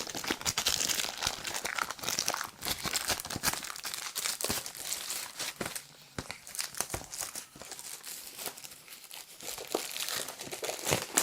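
Plastic packaging being crinkled and torn open by hand, with a steady run of crackles and sharp little clicks.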